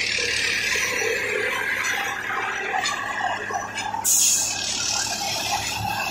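Unimat track tamping machine running: a steady high mechanical whine, then a short loud hiss about four seconds in, after which a lower steady hum goes on.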